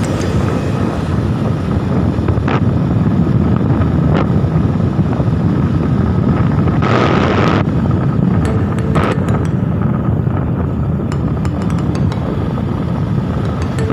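Steady low rumble of wind and road noise from a vehicle driving on a highway, with a brief hissing gust about seven seconds in and a few faint small clicks later on.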